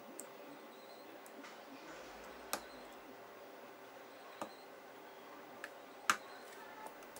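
Sharp small clicks, a handful spread a second or two apart with the loudest about six seconds in, as fingers press parts and connectors down onto a Samsung Galaxy S4's mainboard in its frame.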